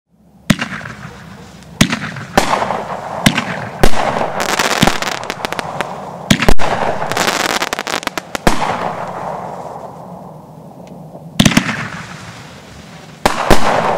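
TNT Catastrophe 500-gram, 22-shot consumer fireworks cake firing: about a dozen sharp reports, several in quick succession in the middle, each trailing off in a long fading echo, with a pause before two more near the end.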